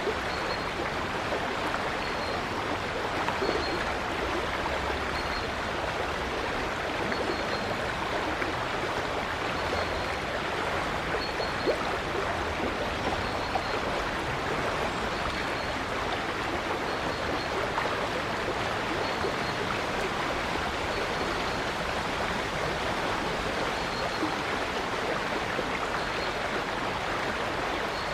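River water flowing steadily, a continuous rushing and babbling. A bird's faint high call repeats about every second or so.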